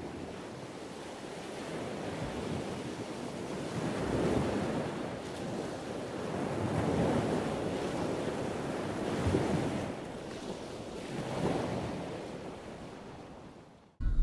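Ocean surf: waves breaking and washing in with some wind, the noise swelling and falling every two to three seconds. An abrupt cut to a louder low rumble comes at the very end.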